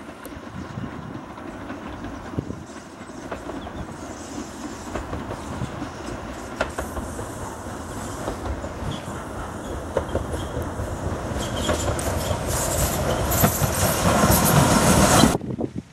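BR Standard 4 Class 2-6-4 tank steam locomotive and its coaches running past, growing steadily louder as the train comes close, with scattered sharp clicks from the wheels. The sound cuts off suddenly near the end.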